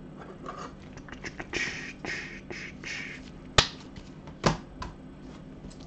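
Gloved hands handling trading cards in clear plastic cases: soft sliding and rustling, with a few sharp plastic clicks, the loudest about three and a half seconds in and another about a second later.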